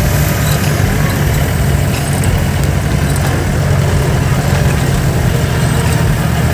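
Off-road jeep's engine running steadily with a low drone.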